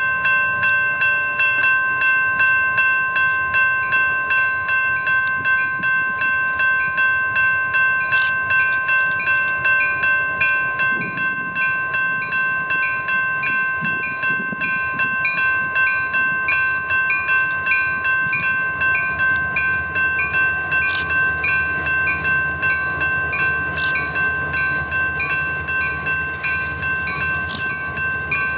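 Railroad grade-crossing warning bell ringing steadily at about two strokes a second, while a heavy freight train passes, its low rumble building from about eleven seconds in, with a few sharp metallic clicks.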